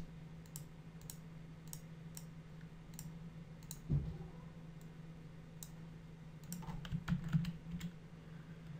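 Scattered clicks and taps of a computer keyboard and mouse, with a soft low thump about four seconds in and a quick cluster of clicks around seven seconds, over a faint steady low hum.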